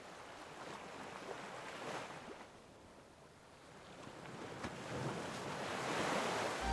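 Sea waves breaking and washing up a sandy shore: the surf swells, dies down almost to nothing in the middle, then builds again with the next wave.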